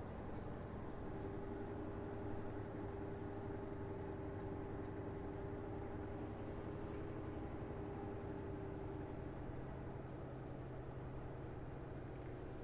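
Peterbilt semi truck's diesel engine running at low speed, heard from inside the cab as a steady low hum.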